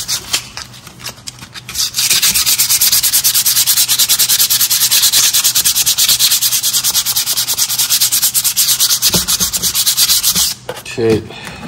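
Sandpaper rubbed by hand across a brake pad's friction face in rapid, even back-and-forth strokes, scuffing fingerprints off the pad. A few light handling clicks come first. The scratchy rubbing starts about two seconds in and stops abruptly near the end.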